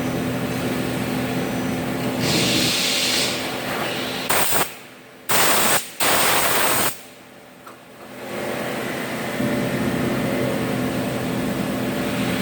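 CNC machine-shop machinery humming steadily, broken near the middle by several short, loud hissing blasts that stop abruptly.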